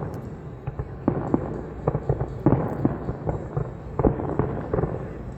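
Fireworks going off in an irregular run of sharp bangs, about a dozen, the loudest about halfway through and again a little after four seconds, over a steady low rumble.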